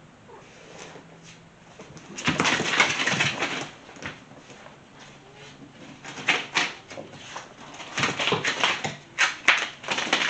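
A cat thrashing and twisting with sticky tape stuck to its fur: a burst of scuffling and rustling about two seconds in, then a run of short scuffles and rustles.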